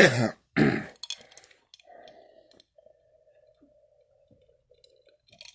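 A man coughing hard, twice in the first second. Then quiet, faint clicks and swallowing as he drinks from a glass.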